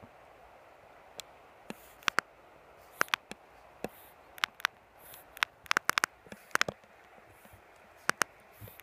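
Many short, sharp clicks and taps at irregular intervals, some loud and some in quick pairs, over a faint steady hiss.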